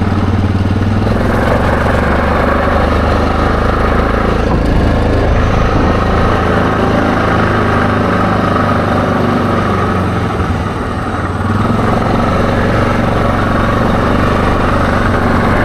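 ATV engine running under way. It picks up speed about a second in, eases off briefly about two-thirds of the way through, then pulls again.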